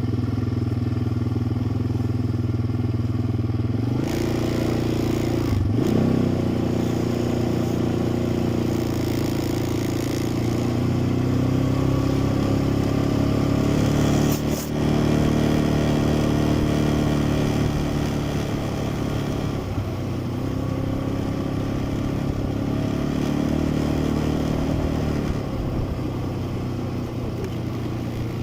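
Quad bike engine running while riding along. Its pitch rises about 4 s in as it speeds up, then shifts up and down with the throttle.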